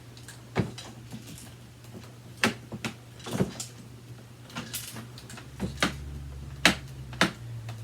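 Irregular clicks and knocks of a plastic upright vacuum cleaner being handled and moved about, over a low steady hum.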